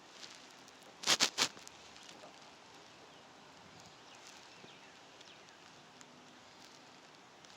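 Four sharp clicks in quick succession, within half a second, about a second in, over a faint steady hiss; a few faint high chirps and ticks follow.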